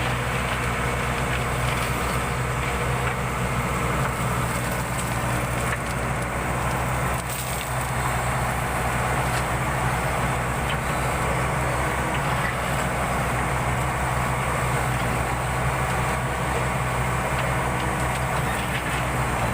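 Backhoe loader's diesel engine running steadily, with scattered knocks and scraping of rubble being scooped and loaded.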